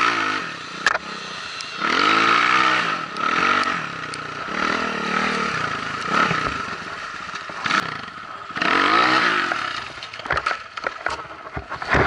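BSE J1 enduro dirt bike engine revving up and falling back in repeated bursts of throttle while riding. Near the end comes a string of sharp clattering knocks.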